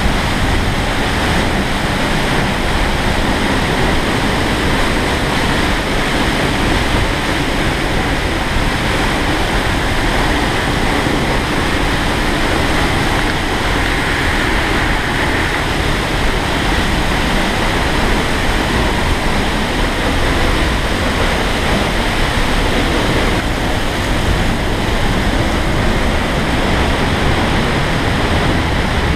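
Fanes waterfall plunging onto rock, heard up close at its base: a loud, steady rushing of falling water and spray.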